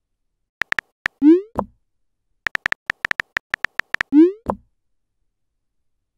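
Simulated phone-keyboard tap clicks as messages are typed. Each burst is followed by a rising 'bloop' message-sent tone and a soft thump. A few taps come first with a send about a second in, then a quick run of a dozen or so taps and a second send a little after four seconds.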